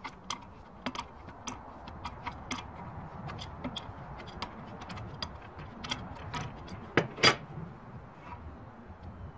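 Irregular metallic clicks and clinks of an adjustable wrench working the forcing screw of a three-jaw bearing puller as it draws a ball bearing off a shaft. Two louder metallic clacks come about seven seconds in, after which the clicking dies away.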